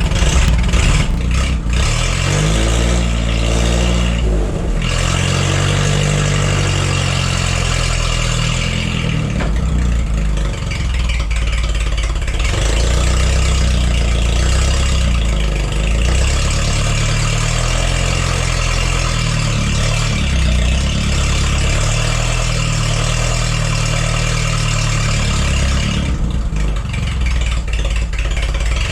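Forklift's gasoline engine running smoothly on all cylinders after a bad spark plug was replaced, its speed rising and falling a few times.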